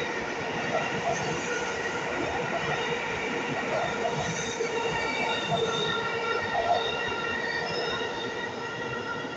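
Electric subway train running through an underground station: a steady rumble of wheels on the rails with high, sustained squealing and whining tones above it, easing a little near the end as the last car clears the platform.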